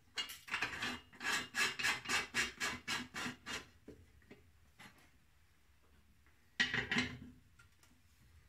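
Plated threaded fitting being turned by hand into a polished aluminium OM 615 valve cover, thread rasping on thread in about a dozen short rhythmic strokes, roughly four a second. A louder brief metallic scrape comes about two-thirds of the way through.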